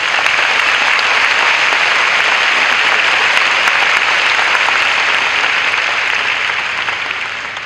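Large audience applauding steadily, tapering off slowly near the end.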